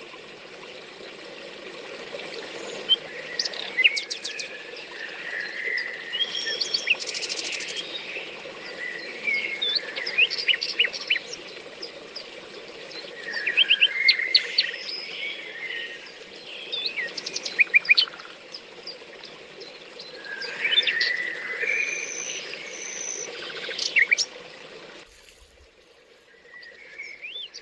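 Several songbirds singing, with short chirps and trills scattered throughout, over a steady low rushing noise that drops away near the end.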